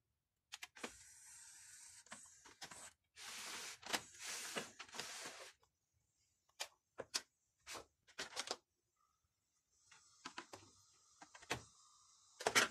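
Hands moving and handling a Samsung mini hi-fi unit: irregular scraping of its plastic and sheet-metal casing, with scattered clicks and knocks. The sharpest knock comes near the end.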